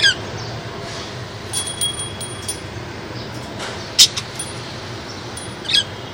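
Lovebirds giving short, shrill chirps: one right at the start, a sharp one about four seconds in, and another near the end, over a steady background hiss.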